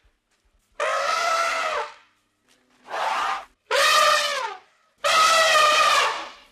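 Elephant trumpeting: four calls in a row with short gaps, the second one brief and the last the longest.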